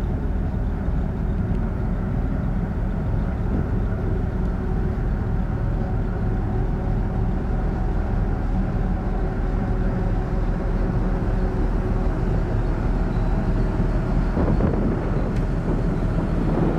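Steady low rumble of a large car ferry's engines and funnel machinery, heard on the open deck, with a few faint steady hums over it that stop near the end.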